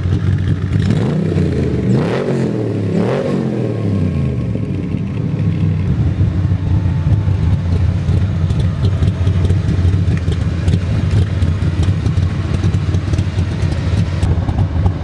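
Ford 347-cubic-inch stroker V8 with fuel injection in a Cobra roadster replica, revved a couple of times about a second in, then settling back to a steady idle.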